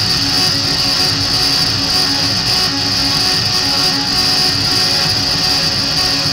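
Loud, steady wall of live electronic noise music: a dense hiss with a strong high band, a few held drone tones beneath it and a grainy, churning low end, with no breaks.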